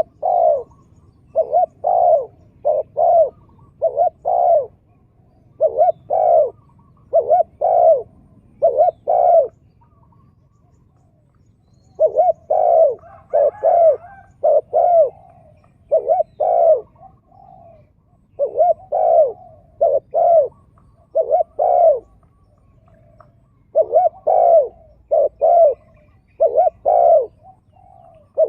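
Spotted doves cooing: deep coos repeated in phrases of several notes, with short pauses between phrases and a longer break near the middle.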